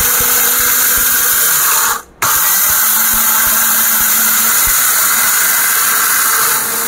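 A 1200 W, 26,000 RPM Orpat mixer grinder runs at full speed with its steel jar, grinding a dry batch into besan (gram flour). It makes a loud, steady whirring with a low hum, breaks off for a moment about two seconds in, then carries on.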